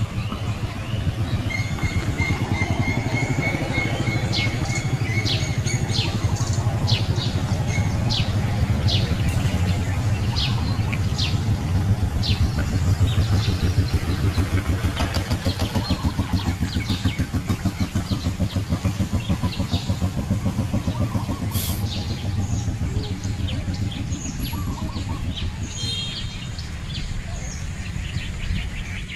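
A steady low motor rumble runs throughout, with birds chirping over it. A quick run of repeated high notes comes a couple of seconds in, and scattered short chirps follow.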